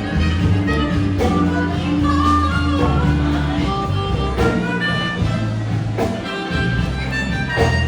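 Live band music, an instrumental passage with sustained melody notes over a bass line.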